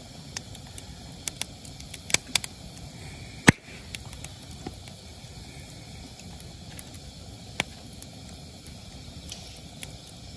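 Firewood burning in an open fire, crackling steadily with sharp scattered pops, the loudest about three and a half seconds in.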